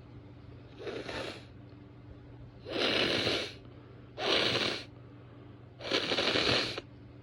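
A woman blowing her nose: a softer blow about a second in, then three hard blows of about a second each, breathy and without voice.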